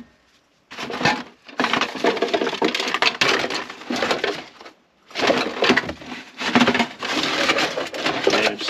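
Aluminum foil and foil pans crinkling as hands rummage through a plastic tote of cookware, in two stretches with a short pause midway.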